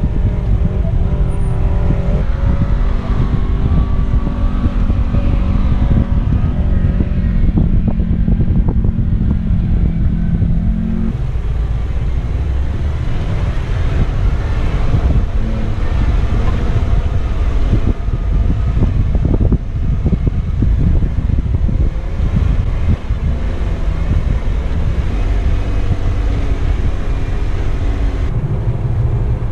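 Jeep engine running at low speed, its pitch holding steady and then dropping about eleven seconds in, under a rough rumbling noise with many irregular knocks.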